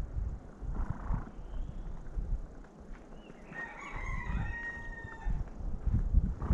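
A rooster crowing once, a single call of about a second and a half just past the middle, over a low rumble.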